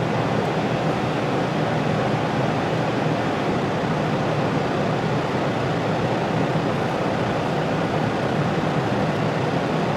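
Steady, even rushing noise with no breaks or rhythm, like a running fan or air-handling unit.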